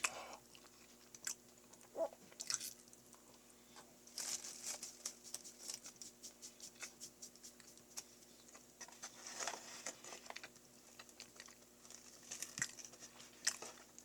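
Mouth sounds of chewing and biting a mass of mashed Choco Pies: irregular runs of wet clicks and smacks, busiest about four seconds in and again around ten seconds.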